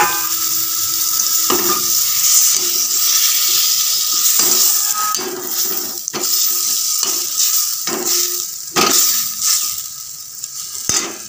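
Hot oil and masala sizzling in a metal pan as water goes in and the curry is stirred. A perforated metal ladle scrapes and knocks against the pan about once a second. The sizzle eases off toward the end.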